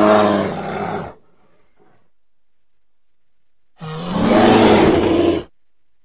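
American black bear vocalizing in two rough, pitched calls, each lasting a second or two. The first is already under way at the start and ends about a second in; the second begins nearly four seconds in after a silent gap.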